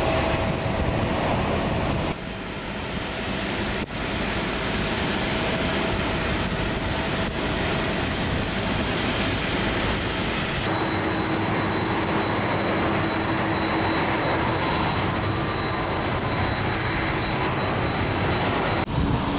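Airport apron noise dominated by a steady jet aircraft engine roar. It changes abruptly a few times as the shots cut, and a thin high whine joins it in the second half.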